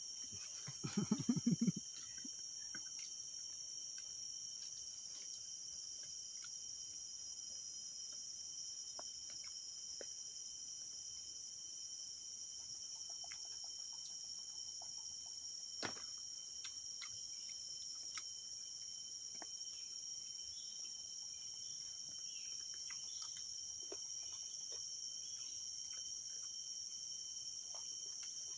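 Steady high-pitched drone of a chorus of insects. A short voice-like sound is heard about a second in, and faint scattered clicks, one sharper near the middle.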